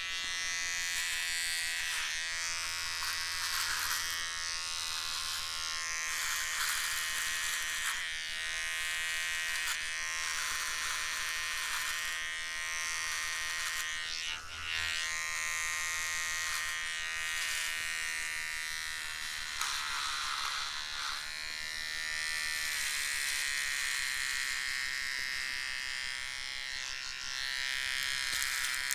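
Electric hair trimmer running continuously with a steady buzz. Its tone shifts every few seconds, and it dips briefly about fourteen seconds in.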